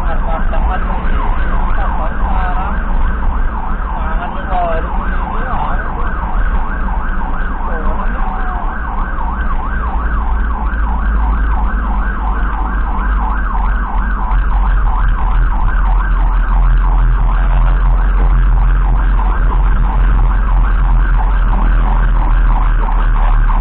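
Emergency vehicle siren in a fast yelp, heard from inside a moving ambulance over a steady low rumble of engine and road. During the first several seconds a slower siren rises and falls alongside it.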